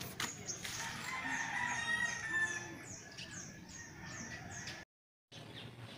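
A rooster crowing once, a drawn-out call about a second in, over repeated quick high chirps from small birds. The sound cuts out completely for half a second near the end.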